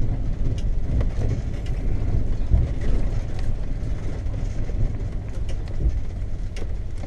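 A 1991 Tioga Class C motorhome rolling slowly over gravel, heard from inside the cab: a steady low engine and road rumble with a few scattered clicks.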